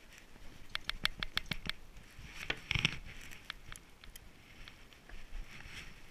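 Close handling noise of a fishing rod, reel and sabiki rig: a quick run of about ten small clicks about a second in, then a louder rustle with a bump a little under three seconds in, followed by scattered clicks.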